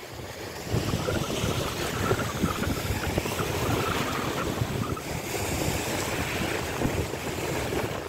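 Wind buffeting the microphone over the steady wash of small sea waves.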